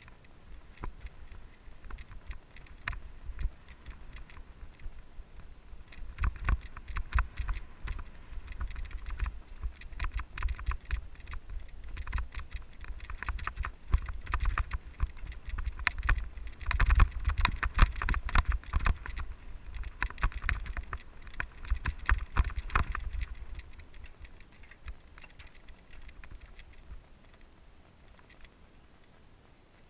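Mountain bike clattering and rattling over a rough, bumpy trail, heard through a GoPro action camera with a low rumble of jolts underneath. The knocks come thick and fast through the middle, then ease off toward the end as the ground smooths.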